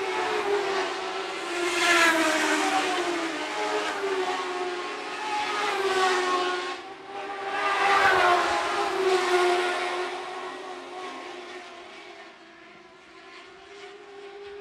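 Several Lightning Sprint race cars running laps on a dirt oval, their engines revving up and down through the corners and straights. They are loudest as cars pass about 2 and 8 seconds in, then fade toward the end.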